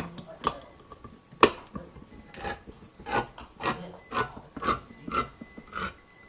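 Handheld crank can opener cutting around the lid of a steel food can: one sharp click about a second and a half in, then regular rasping strokes about twice a second as the handle is turned.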